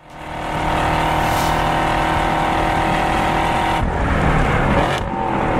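Car engine running at high, steady revs while the car is driven on a race track, fading in at the start. About four seconds in the note breaks into a noisier stretch for about a second, then the steady engine tone returns.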